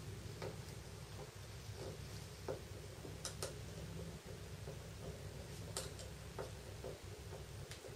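Precision Phillips screwdriver turning small screws into a Samsung Galaxy S1 i9000's housing: faint, irregular ticks and clicks of the bit and handle, over a steady low hum.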